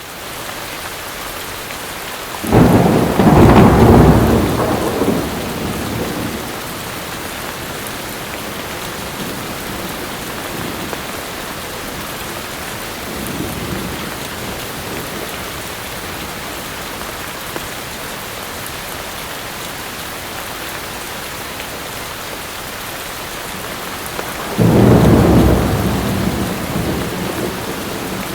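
Steady heavy rain with thunder: a loud rumble about two and a half seconds in, a fainter one in the middle, and another loud rumble near the end.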